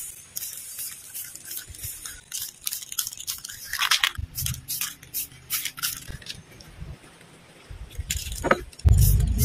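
Samurai aerosol clear-coat spray can being handled and shaken, its mixing ball rattling in quick, uneven clicks, with a short burst of spray about four seconds in. A loud low rumble comes in just before the end.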